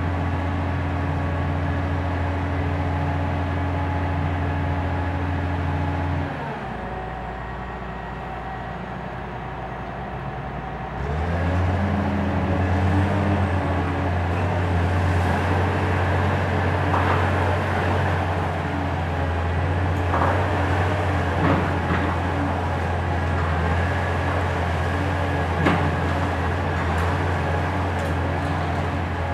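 Hitachi ZX 870-3 high-reach demolition excavator's diesel engine running steadily under hydraulic load. Its note drops lower and quieter about six seconds in, then picks back up around eleven seconds. Scattered knocks and crunches sound over it in the second half.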